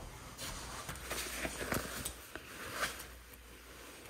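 Faint rustling of a fleece-lined jacket with a few small clicks as a stuck zipper is worked at by hand.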